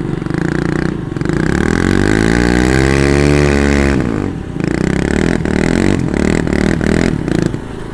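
The engines of a Kawasaki Bayou 220 ATV and a John Deere D110 riding mower run hard, pulling against each other under load. One engine revs up over a couple of seconds and drops back down. A run of sharp clicks and clatter follows in the second half.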